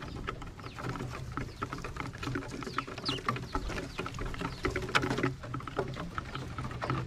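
Mourning doves feeding on seed close to the camera: a dense, irregular patter of small taps and clicks from their pecking, with a brief high bird chirp about three seconds in.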